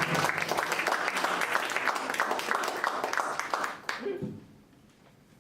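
Audience applauding with dense, even clapping that stops abruptly about four seconds in, followed by a brief voice.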